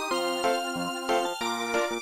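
Samsung SGH-E330N polyphonic ringtone played on the Samsung Blackjack II's synthesizer sound bank: a chiptune-like melody over chords and a bass line, with notes changing in a quick, even rhythm.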